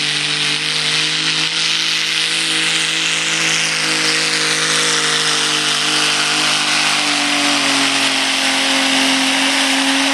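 Pulling tractor's engine at full throttle, held at high revs under the load of a weight-transfer sled. The pitch sags a little about seven seconds in and climbs again near the end.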